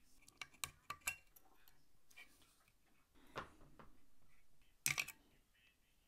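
Faint, scattered clicks and light metallic taps as a soldering iron is worked against the pins of a USB port on a circuit board, with a louder short run of clicks near the end.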